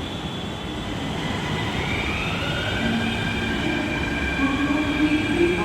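Mumbai metro train running, its electric traction motors whining and rising in pitch as it gathers speed, then holding a steady tone over the rumble of the car.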